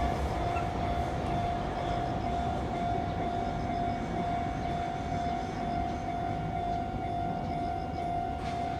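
Level crossing warning bell sounding, a steady high ringing tone, over the low rumble of a train on the Sōtetsu line.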